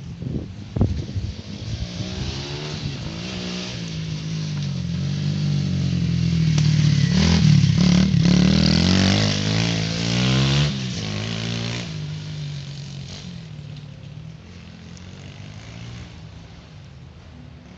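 YCF 125cc pit bike's engine revving up and down as it approaches, is loudest about seven to eleven seconds in, then fades into the distance.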